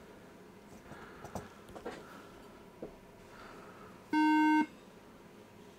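2011 iMac giving one loud, steady electronic beep of about half a second, about four seconds in: the warning tone of a Mac that starts with no RAM installed, the memory having been left out. Faint clicks and taps before it.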